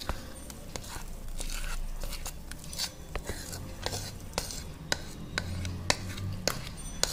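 Thick cake batter being poured and scraped out of a bowl into a steel cake tin, the utensil knocking and scraping against the metal in irregular light clinks, several a second.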